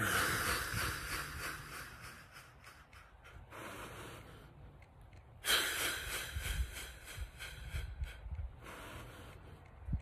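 A man's long, deep breaths, close to the microphone: one at the start that fades over about three seconds, and a second about halfway through.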